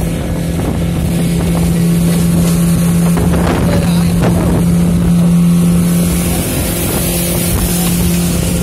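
A 50 hp outboard motor pushing a speedboat at speed, running at a steady, unchanging pitch, with wind buffeting the microphone.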